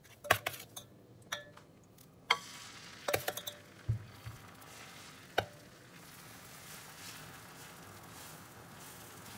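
A steel ladle clinking several times against a stainless steel bowl as spinach-egg batter is stirred and scooped. In the second half comes a steady sizzle as the batter spreads over a hot griddle.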